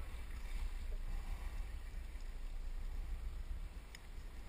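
Wind rumbling on the microphone over water lapping around a small boat, with one faint click about four seconds in.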